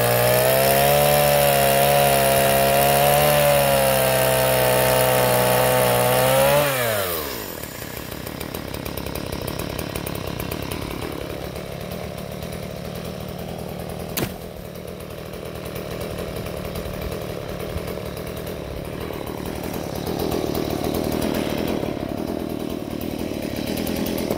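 Geared Stihl MS070 two-stroke chainsaw cutting through a log at full throttle, its pitch wavering under load. About seven seconds in, the throttle is released and the pitch falls, and the saw runs on much quieter at idle, with a single sharp click partway through.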